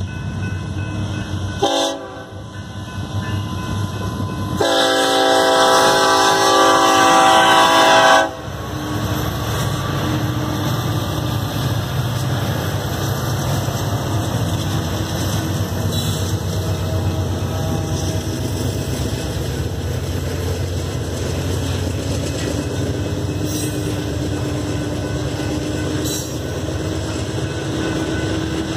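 Diesel locomotive air horn blowing for a grade crossing, ending in one long, loud blast from about five to eight seconds in. Then the Union Pacific locomotives and freight cars pass close by in a steady rumble of engines and rolling wheels.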